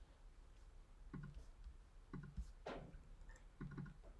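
Faint, scattered clicks of a computer mouse and keyboard, one every second or so, in a quiet small room.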